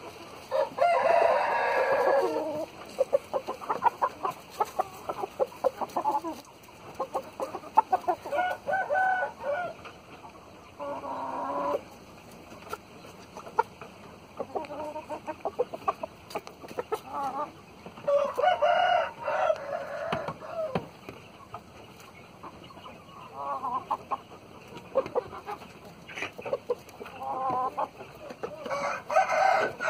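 Backyard roosters, Thai gamefowl, crowing: long crows about a second in, again about 18 s in and near the end. Shorter clucks and calls fall between them, along with scattered small clicks and rustles.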